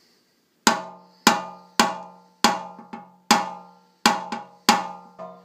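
Plastic-tipped tap-down hammer striking the sheet metal of a Kawasaki Vulcan about ten times, roughly two taps a second, each tap ringing briefly and dying away. This is paintless dent repair: knocking down the raised crown around a dent.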